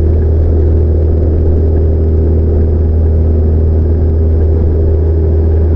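Cessna 172's piston engine and propeller running steadily, heard inside the cabin as a loud, even low drone, with the rumble of the wheels rolling over the grass strip.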